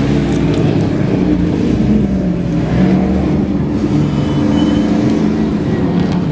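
Engine of an off-road racing Jeep Grand Cherokee ZJ revving under load, its pitch rising and falling as it drives the dirt course.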